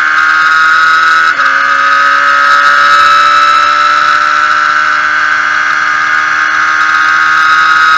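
Radical SR8's V8 engine at full throttle, heard onboard: about a second and a half in a quick upshift into sixth gear briefly dips the sound and drops the pitch, and then the note climbs slowly as the car gains speed.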